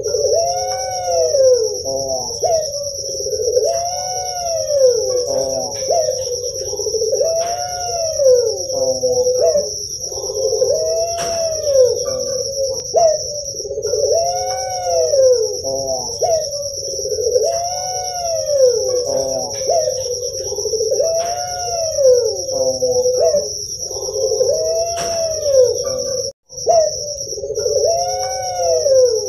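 Puter pelung (Barbary dove) cooing: a long rolling coo that rises and falls, repeated about every three and a half seconds, over a steady high-pitched whine. The sound cuts out for a moment a little before the end.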